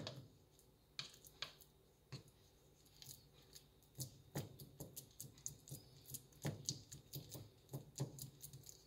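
Faint clicks and taps of a plastic spatula pressing and patting grated Jerusalem artichoke fritters in a nonstick frying pan, over the light crackle of shallow-frying oil. The taps are sparse for the first few seconds, then come several a second.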